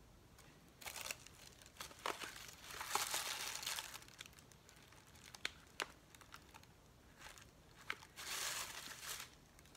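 Packaging being crinkled and torn open by hand, in several spells with scattered small clicks: the longest runs from about two to four seconds in, and another comes near the end.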